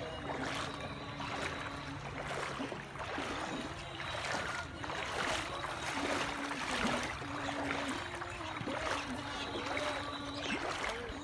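Floodwater swishing and splashing in a regular rhythm, about every half to three-quarters of a second, from steady movement through shallow water.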